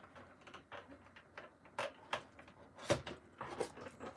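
Cardboard toy box being handled and turned over, with scattered scuffs and rustles of cardboard and wire twist ties and a sharper knock about three seconds in.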